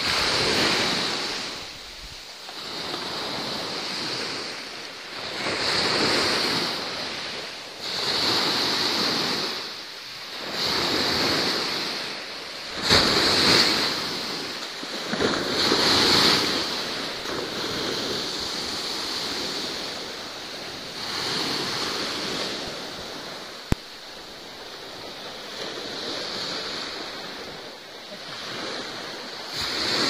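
Sea surf washing in and ebbing away, each wave swelling and fading every two to three seconds. There is a single sharp click about two-thirds of the way through.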